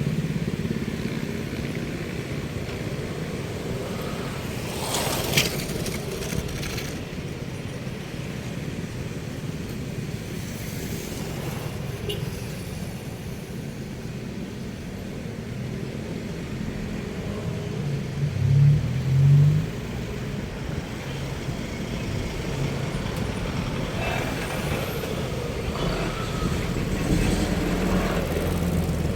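Road traffic: cars and trucks passing with a steady low rumble, several vehicles swelling past. Two short, loud low sounds come close together about two-thirds of the way through.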